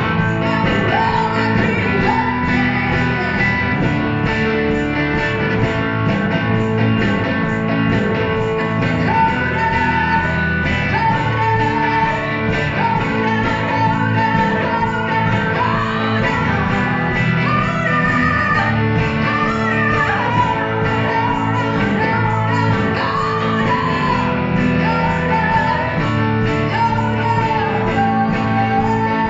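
Band music: a rock song with guitars and a sung or played lead melody over steady accompaniment.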